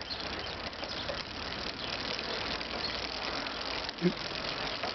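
E-bike rear wheel spinning, a steady mechanical whir with a very faint knocking in it. The knock comes from the rear wheel with the bolts tight, the wheel centred and the derailleur adjusted, and its cause is not yet found.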